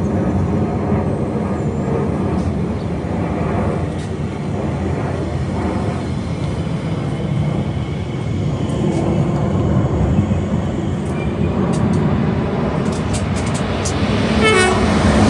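Elizabeth line Class 345 electric multiple unit running in alongside the platform and braking to a stop, with a steady rumble of wheels and motors. Near the end a falling whine is heard as it comes to a halt.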